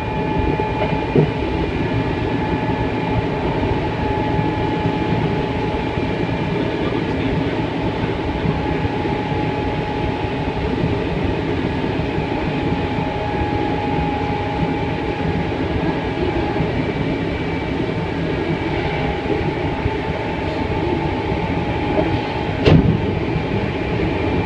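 Hankyu Kobe Line train running at speed, heard from the front of the train: a steady rumble of wheels on rail with a faint steady whine. Near the end, an oncoming maroon Hankyu train passes on the adjacent track, starting with a sudden loud burst of noise.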